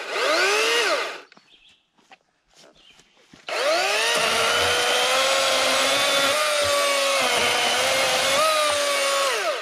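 Kobalt 80-volt battery chainsaw: a short rev-up whine that winds down within the first second, then about three and a half seconds in it spins up to a steady high whine and cuts through a log. Its pitch sags a little under load, rises again near the end, and winds down as the trigger is released.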